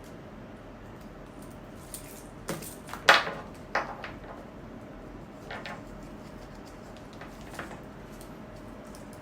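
Hands handling a blind-box toy and its packaging: a few short clicks and rustles, the loudest about three seconds in.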